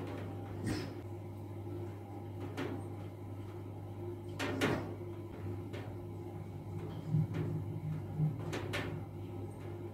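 Rain falling at night: an even hiss over a steady low hum, broken by a few sharp knocks, the loudest about halfway through.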